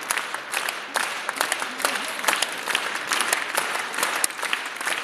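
Crowd applauding: dense, steady clapping of many hands.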